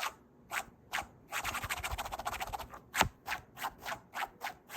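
Scratching and rubbing strokes on a surface: a few separate strokes, then a fast run of scratches, one sharp knock about three seconds in, and regular strokes about three a second after it.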